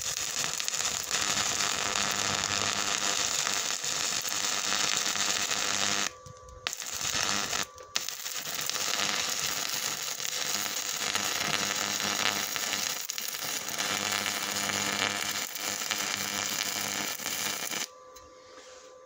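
Stick-welding arc from a KVAZARRUS 210 inverter welder, burning an Arsenal electrode: a steady hiss that drops out briefly about six seconds in and again near eight seconds, then stops about a second before the end. The electrode is burning fairly well.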